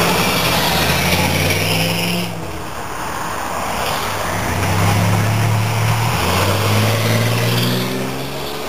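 Muscle car V8 engine running through its exhaust. The note changes abruptly a couple of seconds in, then rises as the engine revs up in the second half.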